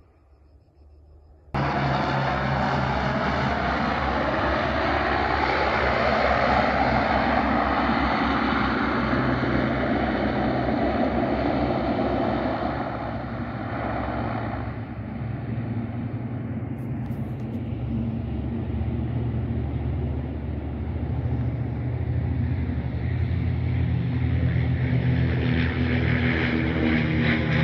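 Amphibious firefighting plane's engines and propellers droning as it flies low over the reservoir, with the pitch sliding slowly as it passes. The sound cuts in suddenly after about a second and a half of near silence, and swells again near the end as the plane skims the water to scoop a load.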